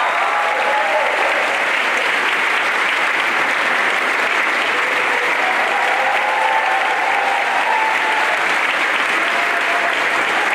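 Steady, sustained applause from a large audience and choir clapping together.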